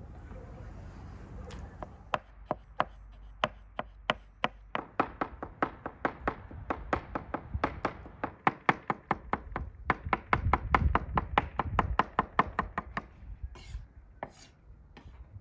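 Kitchen knife chopping vegetables on a wooden cutting board: a quick, even run of strikes, about four a second, starting about two seconds in, stopping a couple of seconds before the end, with a few last strikes after a short gap.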